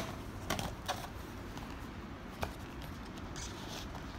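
Cardboard packaging being handled: a sharp tap at the start, then a few light clicks and rustles as the box's inner tray is slid out and the bike computer is lifted from it.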